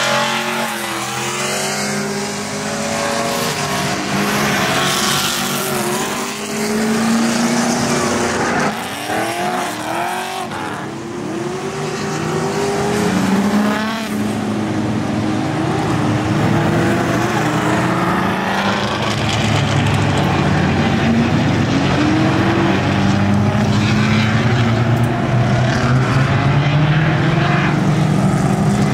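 Drift cars running on a race circuit, their engines revving up and down as they pass, with some tyre squeal. About nine to thirteen seconds in, the revs bounce up and down quickly several times, and from about twenty seconds on a louder, steadier engine note holds.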